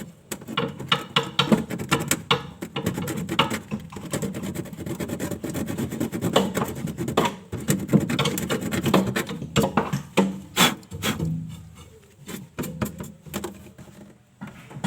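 Repeated irregular scraping and rubbing strokes as the spot around a refrigerant leak in a punctured one-door refrigerator is cleaned down to bare metal for welding.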